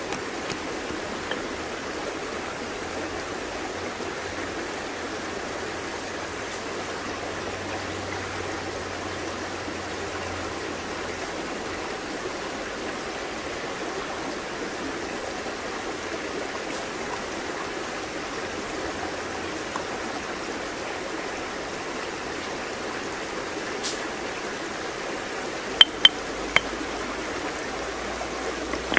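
Steady rush of a flowing stream. Near the end, three sharp knocks of stone on stone from the stone pestle and mortar.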